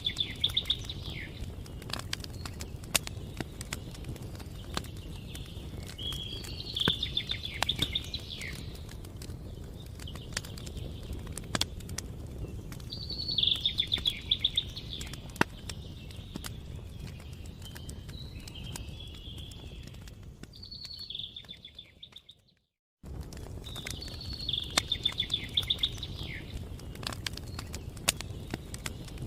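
Wood fire crackling, with sharp pops over a low steady rumble, while a small bird sings short trilled phrases every five to seven seconds. About 22 seconds in, everything fades out to silence for a moment and then starts again.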